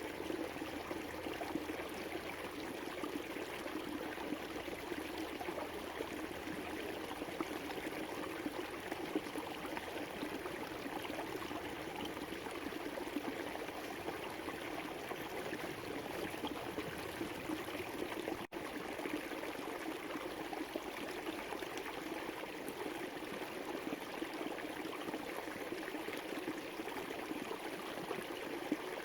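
River water running steadily over stones in a continuous rushing babble. A split-second gap about two-thirds of the way through.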